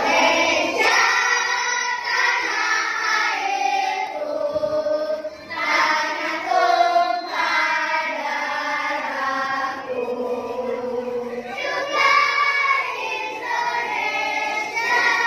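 A class of children singing together in unison, with long held notes.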